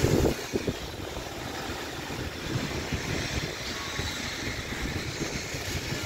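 Gusty wind buffeting the microphone in irregular low thuds over a steady hiss of rain and traffic, with a brief thump right at the start.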